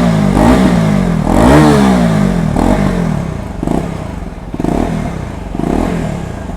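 KTM Duke motorcycle engine revved with its stock exhaust fitted: the engine note rises and falls in one big rev, then four short throttle blips about a second apart, getting quieter toward the end.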